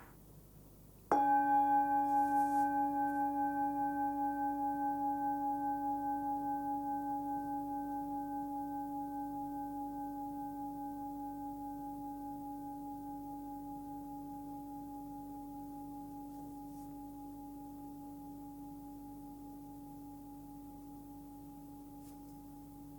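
A 15.7 cm Tibetan singing bowl, its main tone about 285 Hz (between C# and D), is struck once about a second in and left to ring. The tone has an even, pulsing wobble and slowly fades.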